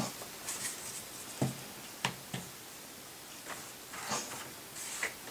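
Paintbrush mixing watercolour in the well of a metal paint-box palette: faint swishing, with several light taps of the brush against the palette.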